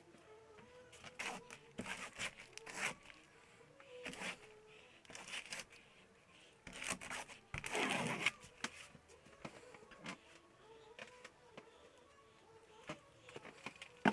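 Scattered scraping and rustling of paint being worked onto a canvas, with a longer, louder scrape about eight seconds in.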